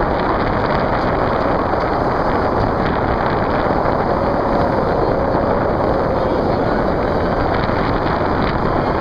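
A steady, loud rush of wind buffeting the microphone, mixed with rushing water.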